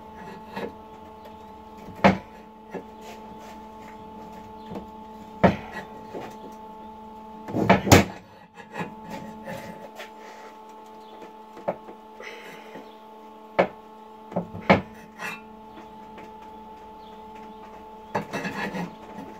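Sharp metal knocks and clanks, spaced a few seconds apart with a cluster about eight seconds in and another near the end, from a steel bar and screwdriver being levered against a steel reinforcement plate on a BMW E36 front subframe. A steady electrical hum runs underneath.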